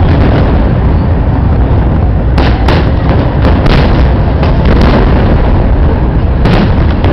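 Fireworks going off in quick succession: dense booming throughout, with sharp cracks clustered from about two to five seconds in and another near the end.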